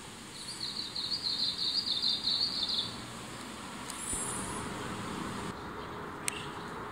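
Eastern crowned warbler singing one song, a rapid run of high repeated notes lasting about two and a half seconds. A fainter, higher bird call follows about a second later over a steady background hiss.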